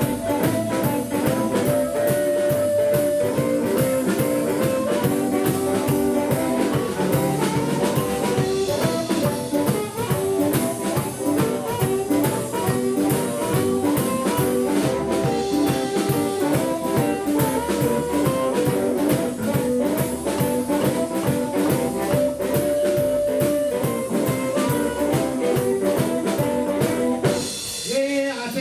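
Live blues band playing an instrumental break: an amplified harmonica solo with long held notes over electric archtop guitar, double bass and a drum kit keeping a steady shuffle beat. The band drops out for a moment near the end.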